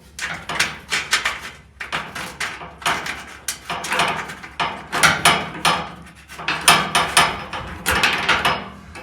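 Hand ratchet wrench clicking in quick repeated runs while bolts are run down and tightened.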